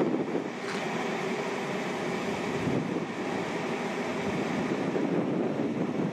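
Airbus A319-112's CFM56 jet engines running as the airliner touches down and rolls out on the runway: a steady rushing roar.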